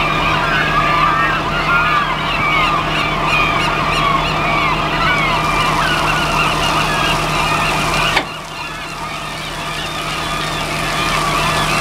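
A flock of gulls calling constantly, many overlapping cries, over the steady hum of the roll-off truck's idling engine. A sharp click comes about eight seconds in, after which the low rumble drops.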